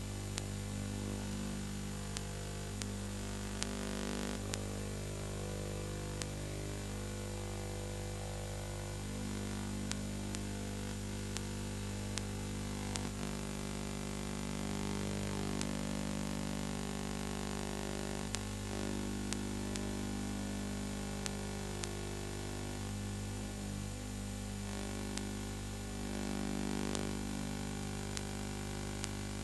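Steady electrical mains hum with hiss and scattered sharp clicks, noise of the transfer of a film that has no soundtrack of its own.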